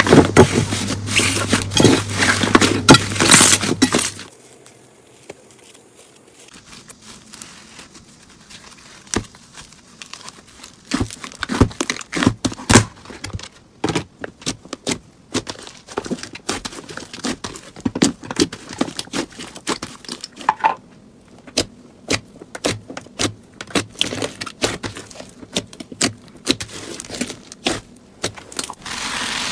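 Slime being handled: dense crackling for about the first four seconds, then, after a quieter pause, scattered sharp sticky clicks and pops as it is pressed and pulled.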